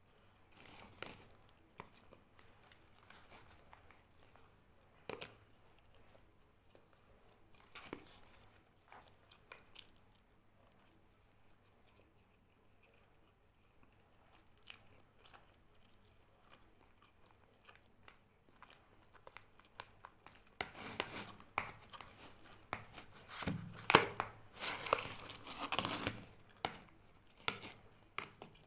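A person chewing and biting food close to the microphone, with crunching. The bites are sparse and faint at first, then come thick and louder over several seconds near the end.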